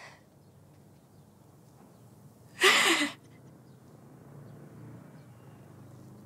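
A woman's single breathy sob, short and loud, about two and a half seconds in, over quiet room tone.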